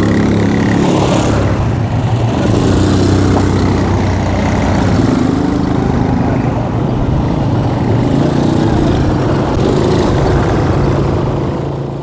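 Several quad bikes (ATVs) driving past in a line, their small engines running continuously with the engine note stepping up and down as the riders work the throttle.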